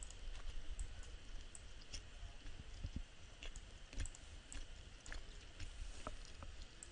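Faint, irregular clicks of a computer mouse, over a low steady hum.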